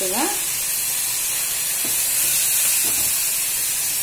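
Small onions, garlic and tomato pieces sizzling steadily in oil in a pan, with a couple of faint taps near the middle.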